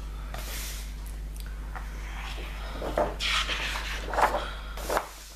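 Pages and cover of a large-format colouring book being opened, turned and slid by hand: paper rustling in several short sweeps, with a few sharper taps, over a steady low electrical hum.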